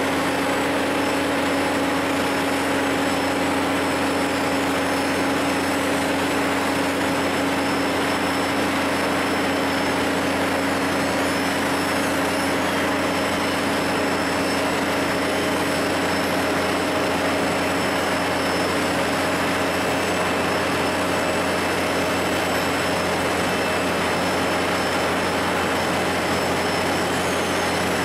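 Dynapac CM2500 compact-asphalt paver running steadily as it lays asphalt: an even mechanical drone with a thin high whine above it.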